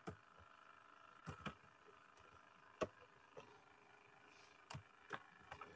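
Faint computer keyboard key clicks, about seven irregular taps, over a low steady hum.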